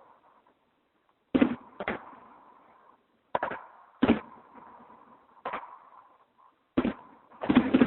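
Fireworks going off: about seven sharp bangs at irregular intervals, each followed by a short echoing tail, with a tight cluster of bangs near the end.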